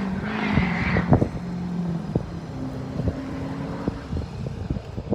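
A motor vehicle's engine running with a steady hum that changes pitch about two seconds in, a brief rush of noise in the first second, and several sharp knocks.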